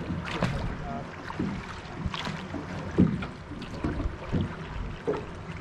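River water lapping and slapping against the hull of a metal fishing boat, with irregular splashes about once a second over a steady wash of current, and some wind on the microphone.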